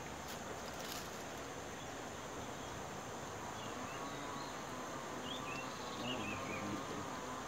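Riverside outdoor ambience: a steady hiss with insects buzzing, and a few short high bird chirps about five to six seconds in. Two brief clicks sound in the first second.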